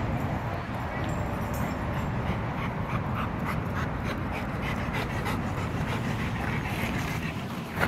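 Black labrador panting in a steady rhythm of short breaths, over a steady low background rumble.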